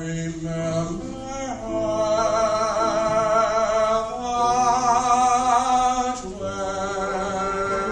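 Mixed choir singing held notes with vibrato, moving to a new chord a few times.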